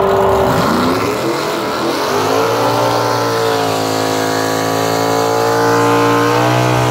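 Drag car's engine revved for a burnout: the revs wander briefly, then from about two seconds in are held high and steady, the pitch slowly creeping up as the tyres spin.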